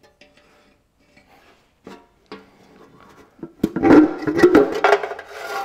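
A few light clicks, then about three and a half seconds in the sheet-metal tappet cover of a McCormick-Deering Regular engine is lifted off the cylinder head, scraping and rattling with a ringing metallic clang.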